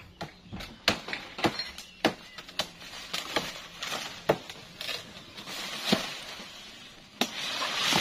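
Irregular sharp knocks and snaps from branches in a teak tree, with leaves rustling, as a man climbs and works in it; the rustling swells near the end.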